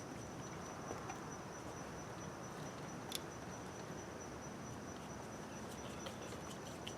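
A few light, sharp clicks of hand tools on the metal engine parts over a faint steady high-pitched whine.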